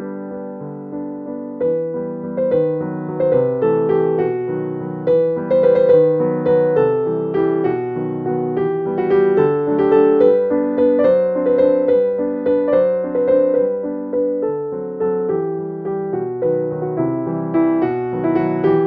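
Background piano music: a gentle melody of single notes struck one after another over sustained lower chords.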